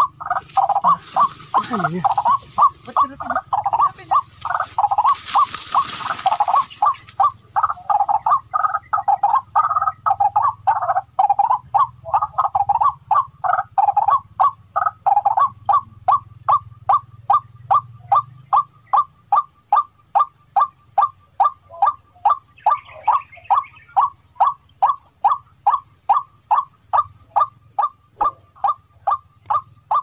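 Waterhen calling a long, monotonous run of short notes, about three a second. The notes are dense and overlapping for the first half, then come evenly spaced.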